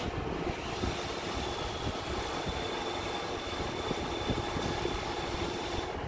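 iRobot Roomba i7 robot vacuum running, a steady mechanical whir with a thin high whine that sets in about a second in and holds steady.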